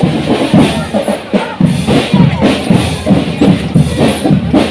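Parade drum band playing a steady, driving beat, with the bass drum prominent.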